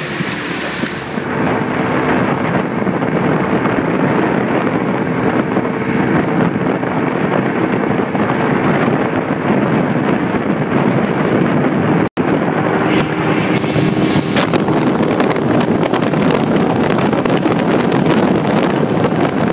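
Mercury 125 outboard motor running steadily at speed while towing a tube, under the rush of the wake and heavy wind buffeting the microphone. The sound cuts out for an instant about twelve seconds in.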